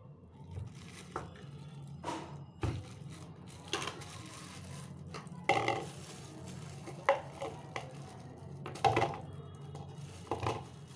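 Knife knocking at a lump of jaggery inside a plastic bag, then broken jaggery pieces dropping and clattering into a plastic storage jar with the bag crinkling. A string of sharp knocks, the loudest ones in the second half, over a steady low hum.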